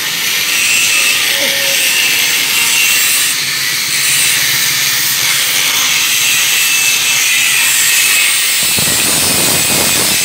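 Angle grinder grinding steel, a loud steady high whine and hiss. About nine seconds in the sound turns coarser and fuller as the disc bears on a curved steel bar.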